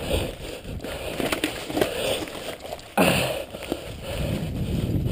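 Mountain bike riding fast over a dirt trail covered in dry leaves: tyres rolling and the bike rattling over the rough ground, with a sudden loud jolt about three seconds in.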